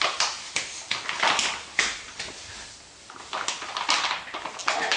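Irregular knocks and clatter of toys being handled on a hard tile floor, with a quieter gap about halfway through.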